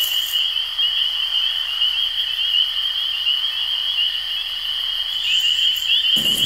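Night chorus of calling frogs and insects: a continuous high, fast-pulsing trill over a light hiss, with a brief rustle near the end.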